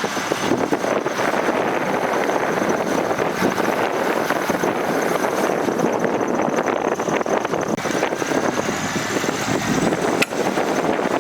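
Heavy diesel earthmoving machinery running steadily under load, with a sharp click about ten seconds in.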